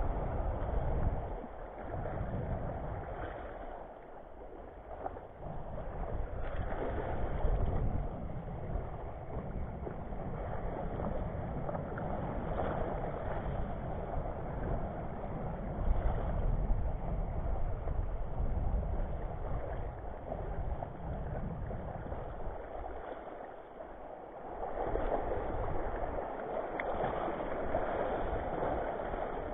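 Small waves washing and lapping over a shallow coral reef flat, surging and easing, with wind rumbling on the microphone.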